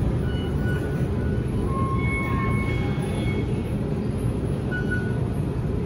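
Steady low rumble of an MTR metro train at slow speed in the depot yard, with a few faint, brief high squeals now and then.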